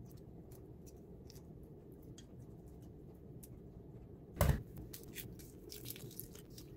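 Boiled egg shells crackling faintly as they are peeled off by hand, with one dull knock about four and a half seconds in and more frequent small cracking clicks after it.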